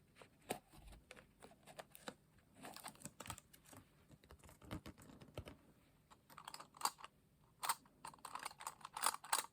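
Page clips for holding journal pages flat being handled close to the microphone: irregular light clicks and taps, coming thickest near the end.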